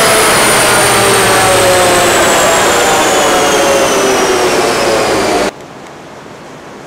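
A 2013 Hyundai Veloster Turbo's turbocharged 1.6-litre four and the chassis dyno roller winding down after a full-throttle pull, a loud whine falling steadily in pitch. It cuts off suddenly about five and a half seconds in, leaving a much quieter steady rush.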